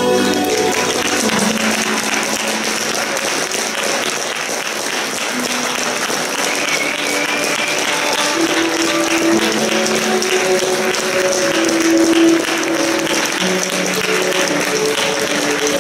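Audience applauding, with recorded music playing under the clapping.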